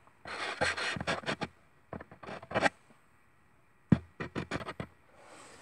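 Handling noise: quick clicks, taps and scrapes in three short bursts, as of tools and objects being picked up and moved about on a work table.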